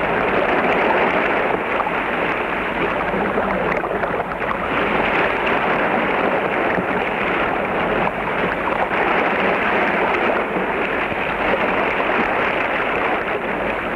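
River rapids: churning white water rushing steadily and loudly around a boat.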